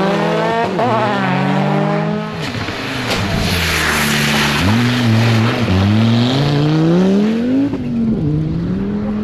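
Rally cars at full throttle on a loose-surface stage. The engines rev up through the gears, then a loud rush of tyre noise comes as an Audi quattro coupé rally car passes close, and its engine climbs steadily in pitch as it pulls away, with a gear change near the end.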